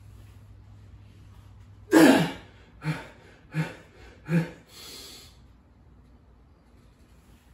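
A weightlifter's forceful breath out, then three short, sharp breaths and a softer hissing breath in, panting from exertion between reps of a heavy barbell back squat.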